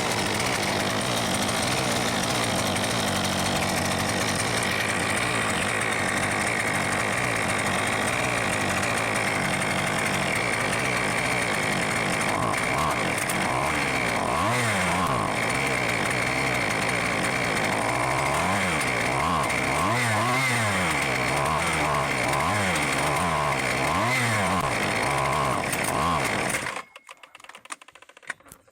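Husqvarna 128R brushcutter's small two-stroke engine running, its speed repeatedly surging up and down in the second half, then cutting out near the end. The uneven running is the sign of a defective carburettor that cannot be adjusted and needs replacing.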